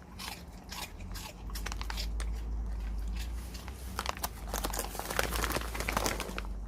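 A dog crunching and chewing Saeukkang shrimp crackers: a run of crisp cracks, thickest in the second half.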